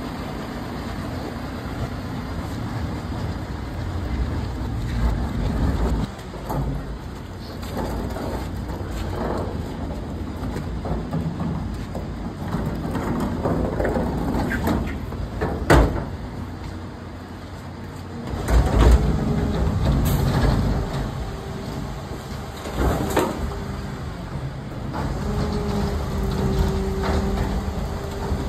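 Rear-loading refuse truck's engine running, with a hydraulic whine coming in about two-thirds of the way through as the bin lift raises and tips a large four-wheeled communal bin. Several loud clanks and bangs of the metal bin and lift.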